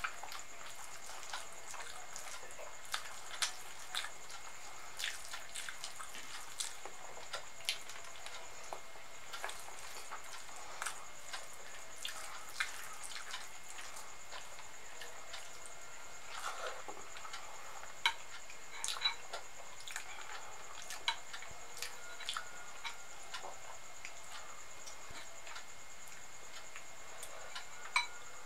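Close-miked eating sounds: irregular wet clicks and smacks from chewing soft khichdi and from fingers squishing and mixing the rice, a few louder clicks about two-thirds through and near the end, over a steady high-pitched hiss.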